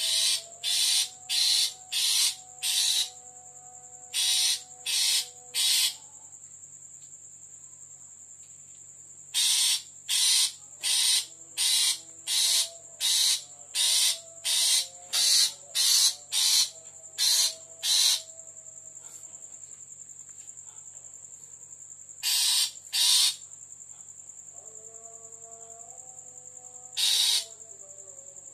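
Insects calling at dusk: a steady high-pitched trill, and over it loud pulses of hissing sound, about two a second, in runs of three to a dozen with pauses between.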